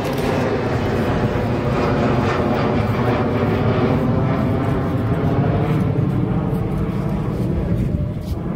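Jet aircraft taking off, its engines at takeoff power making a loud, steady roar that eases slightly near the end.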